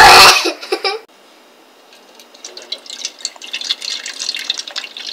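A loud burst of a child's voice at the very start. Then, from about two and a half seconds in, milk pours in a thin stream from a plastic gallon jug into a measuring cup, trickling and splashing as it fills.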